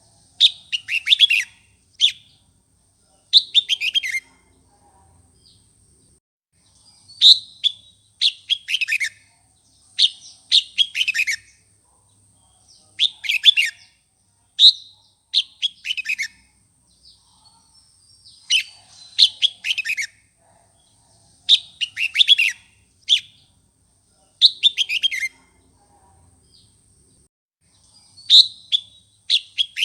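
Red-whiskered bulbul song: short, quick phrases of notes sweeping downward, repeated every second or two with brief pauses, the kind of song played to provoke and fire up wild-caught bulbuls.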